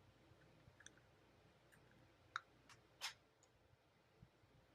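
Faint scattered clicks and taps of small plastic parts being handled, as a small USB power supply is readied for a test. The clearest is a sharp click about two and a half seconds in, then a short scrape about three seconds in.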